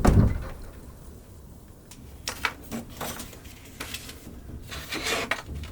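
A low thump at the start, then a handful of short, light clinks and scrapes of small hard objects being handled, like dishes and utensils in a small room.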